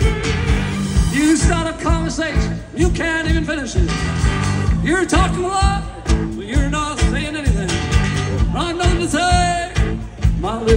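Live band with fiddle, acoustic guitar and rhythm section playing over a steady beat, the fiddle carrying the lead melody.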